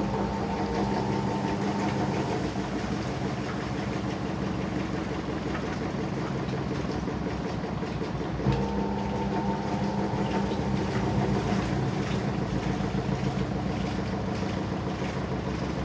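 Washing machine running: a steady rumble and rattle. A motor hum fades out in the first two seconds, then starts again abruptly about eight seconds in and fades over several seconds, as the drum motor drives the drum in turns.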